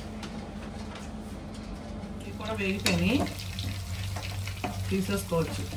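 Fish pieces deep-frying in a pan of hot oil, sizzling, as a wire skimmer stirs them and scrapes and clinks against the pan. It gets louder from about two and a half seconds in.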